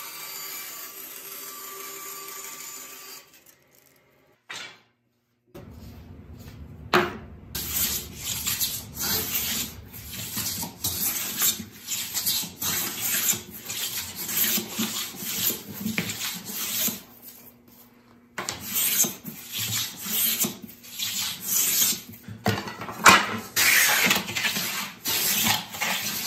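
Metal bench plane shaving walnut strips, repeated push strokes about one a second with a brief pause a little past the middle. The first few seconds are a bandsaw running, ahead of a short break.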